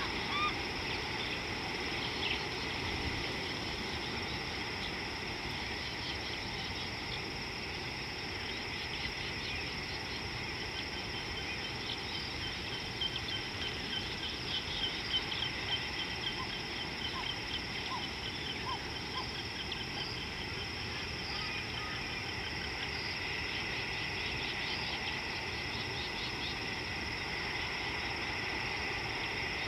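Insects droning steadily in two high, unbroken tones over open savanna by the water. About halfway through, a run of quick, short high chirps and a few lower notes rises over the drone.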